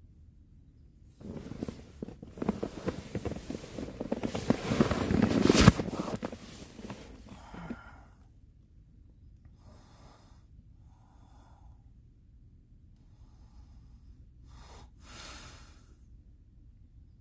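A strong wind gust buffets the tent, its fabric flapping and rattling. It builds for several seconds to a sharp crack and then dies away, followed by a few faint rustles.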